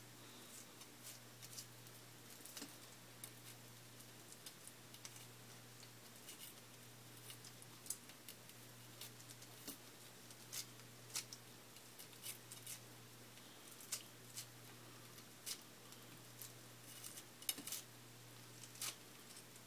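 Kitchen knife scraping a bluegill's skin away from the fillet on a plastic cutting board: faint, irregular scratchy clicks that come more often toward the end, over a low steady hum.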